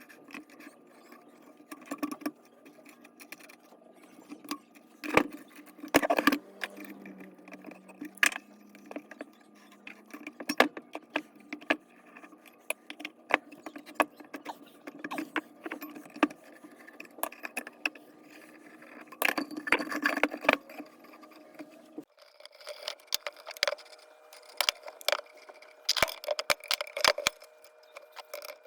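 Metal tools and parts of a hand-crank forge blower clinking, clattering and knocking as it is taken apart, in irregular sharp clicks and taps over a faint steady hum.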